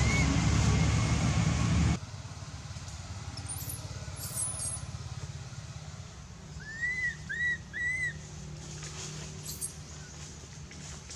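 A loud low rumble cuts off suddenly about two seconds in and leaves a quieter steady low hum. Over the hum come a few very high thin chirps, then three short rise-and-fall whistled calls in quick succession about two-thirds of the way through, from a bird or the infant monkey.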